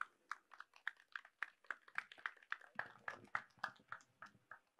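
Faint, light applause: scattered hand claps, several a second and unevenly spaced, dying away near the end.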